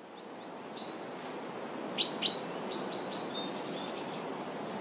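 Small birds chirping and trilling over a steady outdoor background haze that fades in over the first second; two louder, sharp chirps come about two seconds in.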